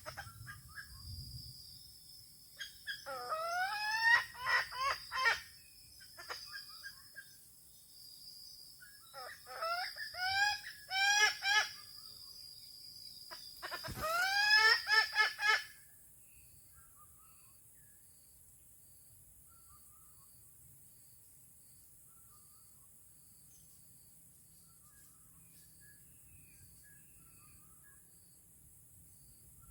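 Red junglefowl crowing three times, each crow a short run of rising, clipped calls, about 3, 9 and 14 seconds in. After about 16 seconds only faint chirps and ticks remain.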